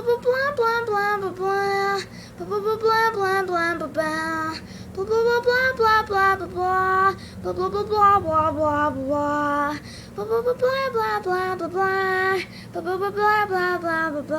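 A high child's voice singing the same short sung phrase over and over, about every two and a half seconds, over a faint steady low hum.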